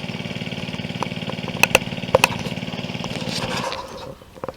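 Small gasoline engine of a portable water pump running steadily, with a few sharp clicks over it, then shut off a little under four seconds in as the AquaDam filling finishes.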